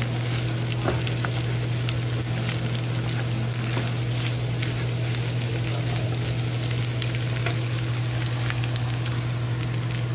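Diced potatoes, chorizo and eggs sizzling and crackling in a frying pan as they are stirred with a wooden spoon, over a steady low hum.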